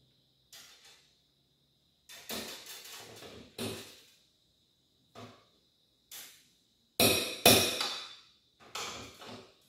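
Metal hand tools clanking against a steel tool table and its pegboard as they are picked up and put down: a string of sharp metallic knocks and clatters at uneven intervals, the loudest pair about seven seconds in. A faint steady high-pitched tone runs underneath.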